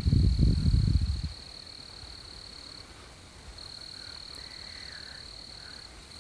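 Wind gusting on the microphone with a low rumble for about the first second, then a steady high trill of crickets that drops out briefly about three seconds in.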